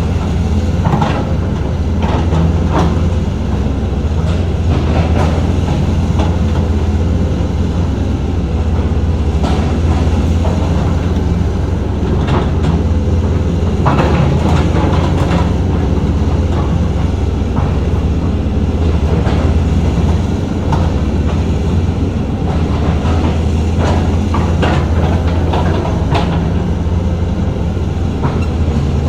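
Heavy earthmoving machinery working: a diesel engine running with a steady low drone, with irregular metallic clanks and rattles throughout.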